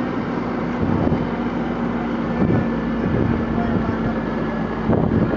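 A fire engine's pump engine running with a steady hum while a hose line sprays water onto a burning pickup truck, with a continuous rush of spray and steam and wind on the microphone.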